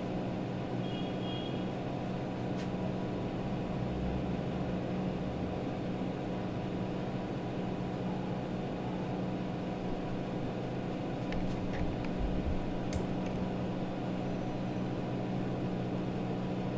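Steady low mechanical hum of room machinery, even and unchanging. About a second in, a marker gives a brief faint squeak on a whiteboard, and a few faint ticks follow later.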